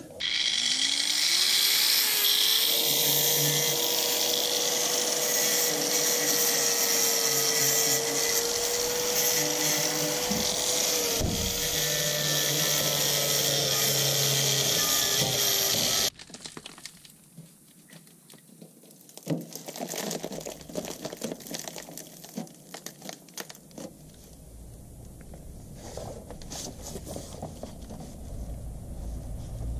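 A handheld power drill spins up and runs steadily with a high whine against the rusted sheet metal of a VW T3 van's rear wheel arch. About eleven seconds in it briefly slows and recovers, and about sixteen seconds in it stops suddenly. After that come quieter scattered crackles and clicks.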